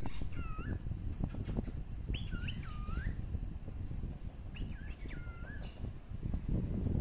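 High, thin whistled calls from a small animal, heard three times, each swooping down in pitch and back up, over a steady low rumble.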